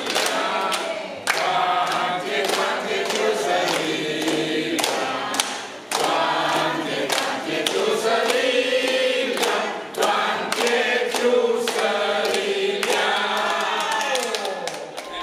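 A group of men and women singing together, clapping along in time. The song ends near the end in a falling, drawn-out note.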